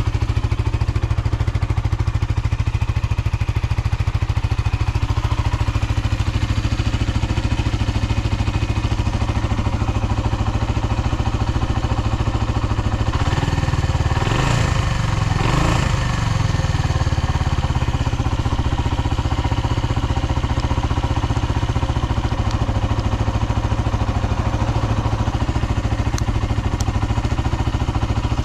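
Suzuki Volty's 250 cc air-cooled single-cylinder engine idling steadily, blipped twice about halfway through and then settling back to idle. It revs up cleanly with no abnormal noises, according to the seller.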